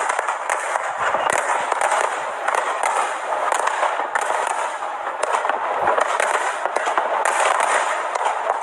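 Fireworks display crackling and popping in quick, dense succession, with a few deeper bangs about a second in and again near six seconds.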